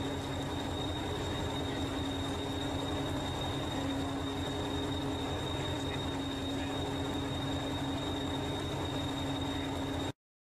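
Diesel engine of heritage Hastings diesel-electric multiple unit 1001 running steadily at standstill, a low rumble with a thin steady high whine above it. The sound cuts off abruptly about ten seconds in.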